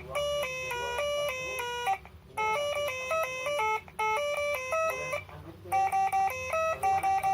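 Telolet horn module playing a tune: a quick melody of short, buzzy horn-like notes stepping between a handful of pitches, with brief pauses between phrases.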